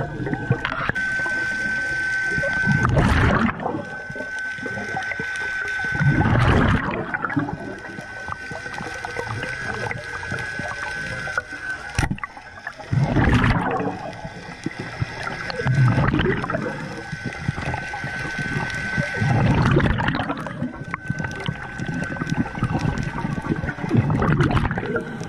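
Scuba diver breathing underwater through a regulator: a rushing exhale of bubbles every three to four seconds, over a thin steady high whine. Halfway through comes a single sharp snap of the speargun firing.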